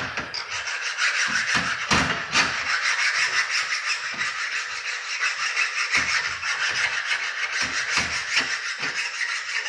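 Steel flat file rasping in quick back-and-forth strokes along the rails of a chainsaw guide bar, dressing down the worn, burred bar edges.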